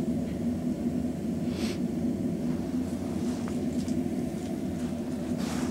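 Small gasoline engine running steadily with an even low hum, shortly after a cold start on choke; the engine is still cold.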